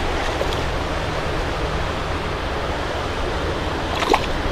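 Steady rush of creek water, with one brief sharp click about four seconds in.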